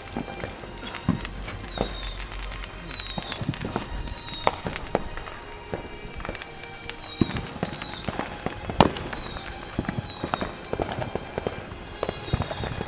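Whistling fireworks: a string of high whistles, each about a second long and falling in pitch, repeating roughly once a second over a crackle of small pops. One sharp bang comes near the end.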